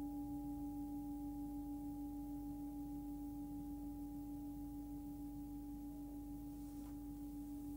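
Hand-forged Tibetan singing bowl, 15 cm, ringing on with a steady deep hum at about 287 Hz (D) and fainter higher overtones. The tone slowly fades with a slight regular wavering.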